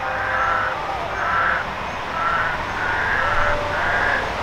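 Loud chorus of frogs calling at night, a steady run of held notes of about half a second each, repeating roughly once a second over a constant background din.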